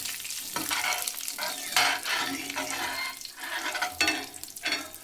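A tadka of mustard seeds, red chilies and hing sizzling in hot oil in a pan, stirred with a spoon in irregular scraping strokes over the steady sizzle.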